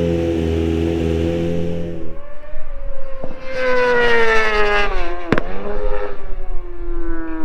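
A steady held music chord for about two seconds, then racing motorcycles at speed on a circuit, the engine note dropping in pitch as one passes, with a sharp crack about five seconds in.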